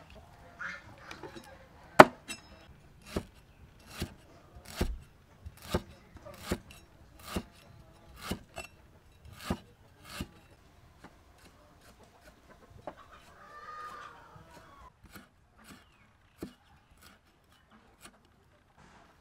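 Cleaver slicing through lemongrass stalks onto a wooden chopping board: crisp knocks about once a second, then lighter, sparser taps in the second half.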